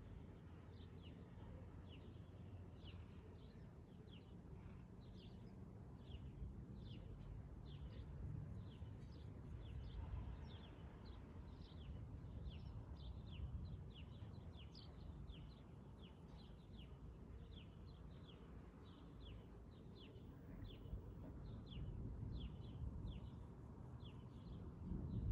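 A small bird calling a short, high, falling chirp over and over, nearly twice a second, over a faint low steady rumble.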